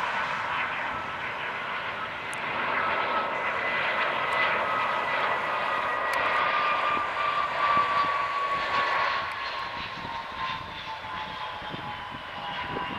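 Twin jet engines of an Airbus A320-family airliner on final approach and landing: a steady roar with a whine that glides slowly down in pitch as the plane passes, loudest in the middle and fading near the end.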